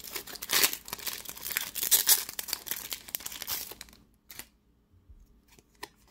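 Foil wrapper of a Pokémon Sword and Shield booster pack being torn open and crinkled, crackling for about four seconds. Then a few soft clicks as the cards are handled.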